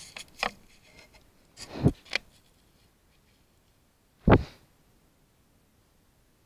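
A series of rubs, scrapes and sharp knocks against a trail camera's casing as something presses up against it. The loudest knock comes about four seconds in.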